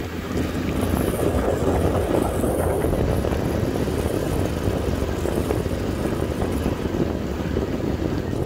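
Motorcycle being ridden at a steady speed: a steady engine drone mixed with wind rushing over the microphone.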